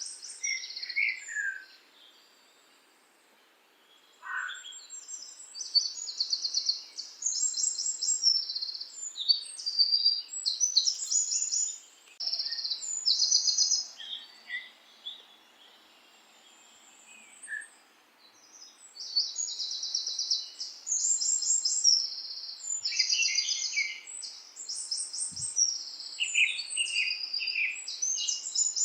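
Birds chirping and singing in short, fast trilled phrases, several calls following one another, with a few brief pauses between bursts.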